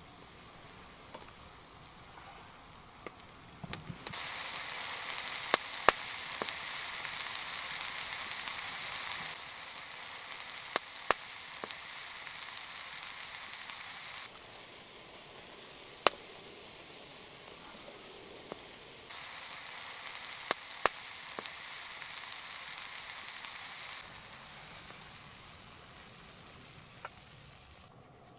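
Vegetables sizzling in a wrought iron frying pan over a wood fire, with sharp crackles and pops from the burning wood. The sizzle swells for several seconds at a time and drops away in between.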